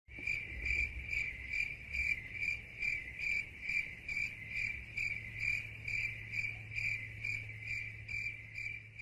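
Crickets chirping in an even rhythm, about two chirps a second, over a faint low hum: the stock 'crickets' gag effect that signals awkward silence.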